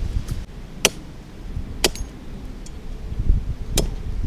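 Three sharp clicks about a second apart as sea urchin shells are knocked and cracked with a cleaver on a wooden chopping block, over a low wind rumble on the microphone.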